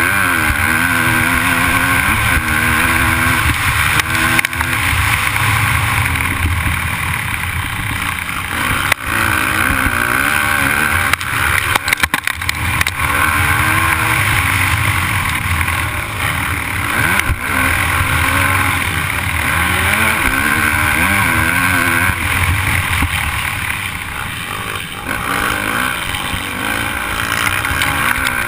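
Motocross dirt bike engine ridden hard, revving up and down again and again through the gears, heard on board with a steady rush of wind on the microphone. A few sharp knocks come through over bumps.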